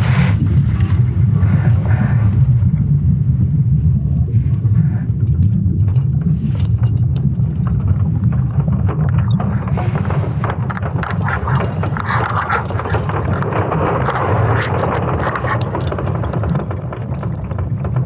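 Sonification of Earth's magnetic field made from ESA Swarm satellite data: a deep, steady rumble with crackles and creaks over it, and a louder hissing wash swelling in about two-thirds of the way through.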